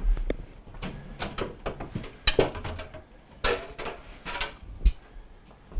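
Glass shelves of a Samsung French door refrigerator being lifted out and slid free of their rails: a run of small clicks and knocks, a sharp clack about two seconds in, short scraping slides, and a louder knock near the end.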